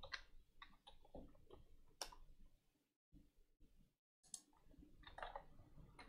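Faint typing on a computer keyboard: scattered keystroke clicks, with a break of about a second and a half in the middle.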